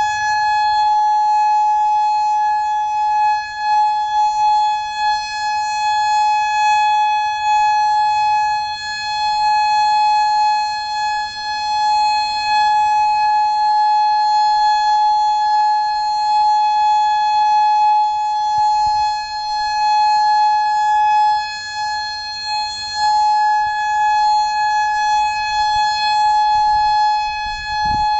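Federal Signal Modulator 6024 electronic siren sounding its steady alert signal: one unbroken high tone with overtones, holding the same pitch and wavering slightly in loudness.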